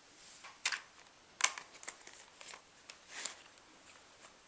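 Plastic clicks and knocks of a Fisher-Price Take-n-Play Sodor Steamworks Repair Shed playset being unfolded, its hinged plastic track sections clacking open into place: about five sharp clicks, the loudest about one and a half seconds in.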